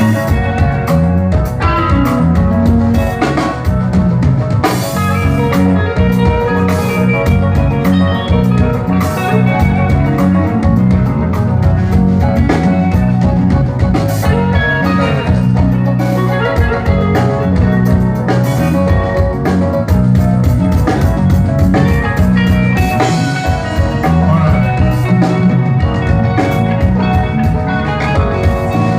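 Recorded music played loud over a sound system during a sound check, with a steady drum beat, a repeating bass line and bright melodic lines on top.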